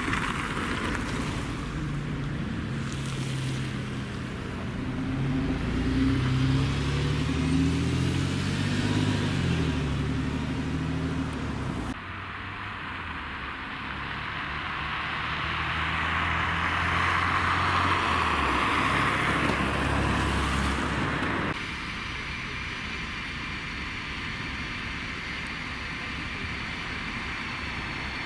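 City buses' engines and passing traffic: for the first dozen seconds an engine rises and falls in pitch as a vehicle drives past, then buses queued in a jam run with a steady low engine note that drops near the end of that stretch, followed by quieter steady traffic noise.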